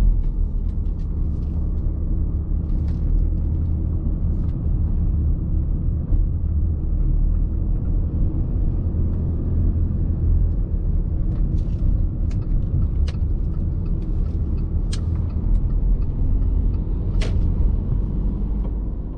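Audi A6 C6 2.0 TDI four-cylinder diesel car cruising at speed: a steady low rumble of engine and road noise. Several sharp clicks or knocks come through in the second half, and the sound fades out at the end.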